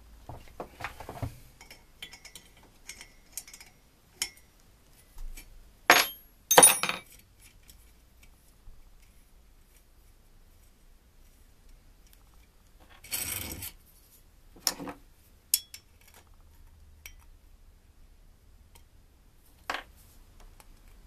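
Copper boiler tube and hand tools handled on a metal bench vise and workbench: scattered small metallic clinks and clicks, with two sharp knocks about six seconds in and a short clatter a little past the middle.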